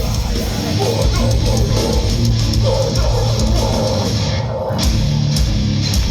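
Heavy band music played live: loud distorted guitars over bass and a drum kit.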